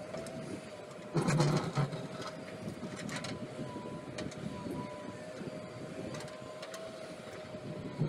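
JCB backhoe loader working, its diesel engine and hydraulics running steadily with a steady whine. A loud burst of clatter comes about a second in, with a shorter knock a couple of seconds later.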